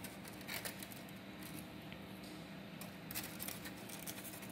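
Hands rubbing and pressing on cut polystyrene foam pieces: faint squeaky scraping and crackling, with a few sharper clicks. A low steady hum runs underneath.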